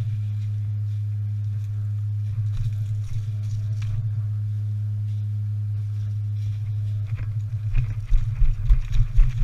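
Steady low hum, with scattered faint ticks and a run of heavy low thumps near the end.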